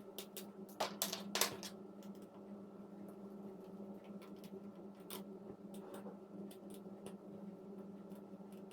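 Small clicks and taps of a repair tool working on an iPhone 6's screen and frame, with a louder cluster of clicks about a second in, over a steady low hum.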